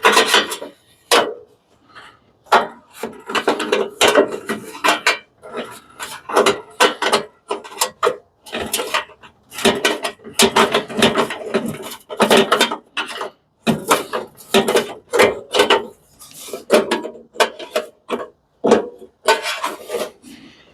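Irregular clanks, knocks and scrapes of hand tools on metal parts as an industrial coffee maker is taken apart, coming in quick clusters with short pauses between them.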